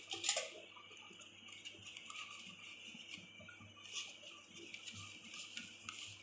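Faint scattered clicks and taps of kitchen utensils, with a short clink just after the start and another about four seconds in.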